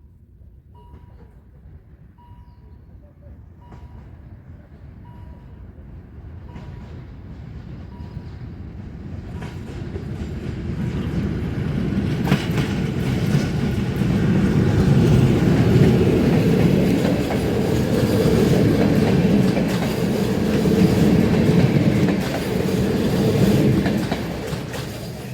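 A freight train approaching and passing. Its rumble grows over about ten seconds to a loud, steady run with repeated wheel clicks over the rails, then cuts off suddenly. A regular beeping tone sounds faintly in the first seconds.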